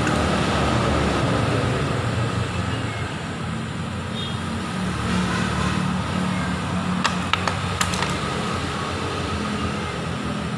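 Yamaha R25's parallel-twin engine running steadily, with a few sharp clicks about seven to eight seconds in.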